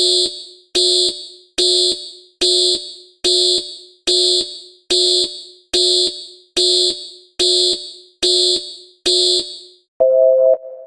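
Electronic alarm sounding a shrill, evenly repeated beep, twelve beeps a little more than one a second, each fading away. About ten seconds in, a different, lower electronic tone begins.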